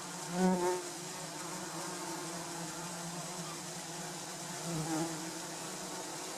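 Bumblebees buzzing in flight: a steady low hum, louder twice as a bee passes close, about half a second in and again near five seconds.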